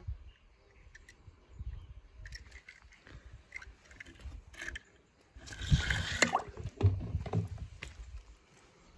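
Handling noise from a toy car being picked up and set down on a glitter-covered board: scattered small clicks and scrapes with low rumbling, and a brief louder rushing scrape about six seconds in.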